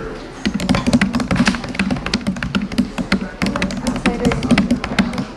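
Fast typing on a MacBook Air laptop keyboard: a quick, continuous patter of key clicks, over background music.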